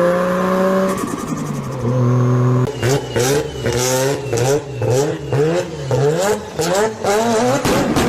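Tuned car engine revved hard: held at steady revs at first, then blipped up and down about twice a second, with sharp cracks and pops between the blips.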